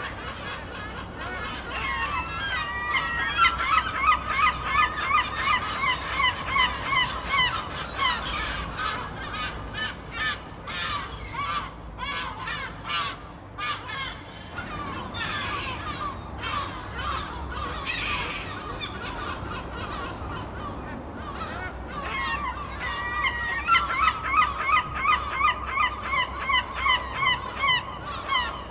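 Seagulls squawking, several birds calling over one another. Two long runs of rapid, repeated calls come about two seconds in and again near the end, with scattered single squawks between them.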